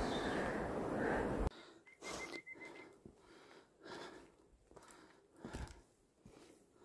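Footsteps and heavy breathing of a hiker walking a forest trail, after a louder stretch of noise that cuts off abruptly about a second and a half in. A short high trill sounds about two seconds in.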